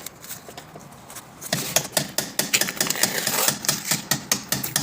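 Clicks and knocks from hands working on a PVC window's sash and fittings, quiet at first, then a quick irregular run of sharp clicks from about a second and a half in.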